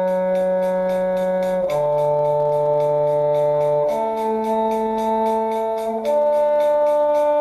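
Four held instrumental notes, F sharp, D, A, D, each about two seconds long with a steady, unwavering pitch: a string shifting exercise played slowly note by note.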